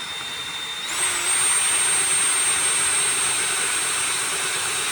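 Electric drill running with a 3/16-inch bit, drilling a drawer-pull hole through the Kreg drawer hardware jig's bushing into a drawer front. Its high whine rises in pitch and gets louder about a second in, then runs steadily.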